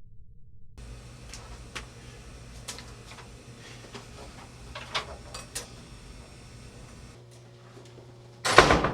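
Typewriter keys struck one at a time: a handful of sharp, separate clicks spaced irregularly, over a low steady hum. A sudden loud noise comes near the end.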